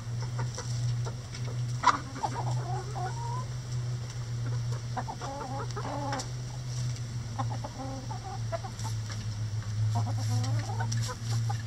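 Hens clucking in several short bouts as they peck at a hanging cabbage, with a sharp tap about two seconds in and a steady low hum underneath.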